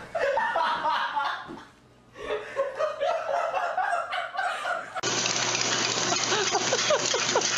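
A person laughing in repeated bursts, with a short pause about two seconds in. After about five seconds it gives way to a steady rushing noise with a few short high sounds over it.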